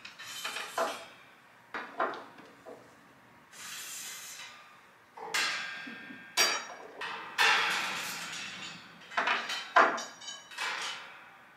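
Metal wire playpen panels clanking and rattling as they are handled, lifted and fitted together, a series of separate knocks with scraping and jangling between them.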